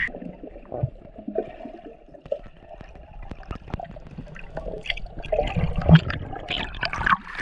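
Water heard from below the surface as a snorkeler dives: bubbling and gurgling with many irregular clicks and knocks.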